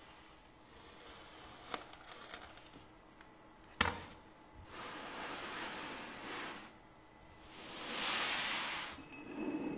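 Kinetic sand being cut and cleared by hand: a few light clicks, a sharp crack about four seconds in, then two longer grainy scraping hisses of sand sliding over a smooth surface, the second the loudest.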